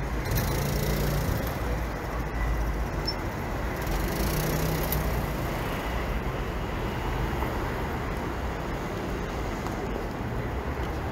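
City street traffic noise, with vehicles passing about a second in and again around four seconds in.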